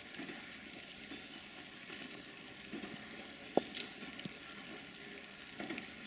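Faint crackling outdoor background noise, with a single sharp click about three and a half seconds in.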